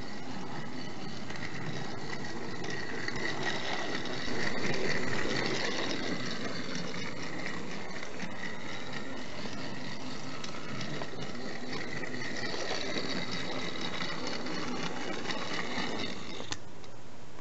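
Battery-powered TrackMaster Thomas toy engine running along plastic track, its small electric motor and gears giving a steady whir. The whir is briefly louder about four seconds in and cuts off suddenly near the end as the engine is stopped by hand.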